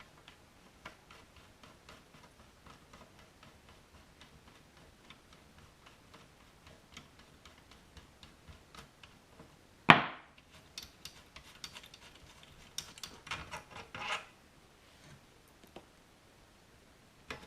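Hand tools and small metal parts being handled on a workbench: scattered light clicks, one sharp knock about ten seconds in as something hard is set down, then a short run of clicking and rattling.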